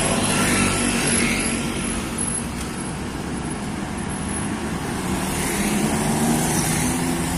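Road traffic passing: a steady hum of motorcycle and vehicle engines and tyres, with an engine note rising a little in the second half.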